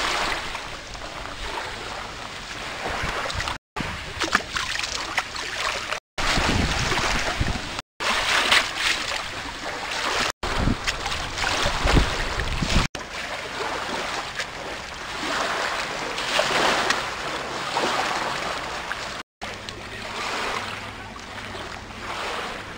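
Outdoor noise of wind on the microphone and open water, in several short clips joined by abrupt cuts. A heavy low rumble comes and goes in the middle clips.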